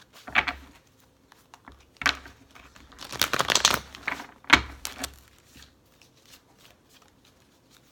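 A deck of fortune-telling cards being shuffled and handled. A few brushing swishes lead into a quick riffle of many rapid snaps about three seconds in, then another swish and a few faint ticks.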